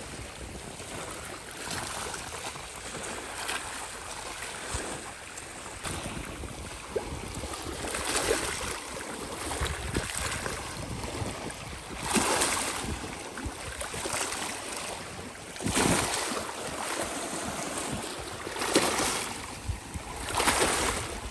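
Small sea waves washing in over shoreline rocks, a steady wash that surges louder every few seconds as each wave breaks and splashes among the stones.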